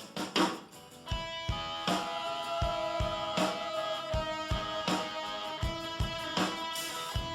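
Background music: a guitar-led song, with a drum beat coming in about a second in.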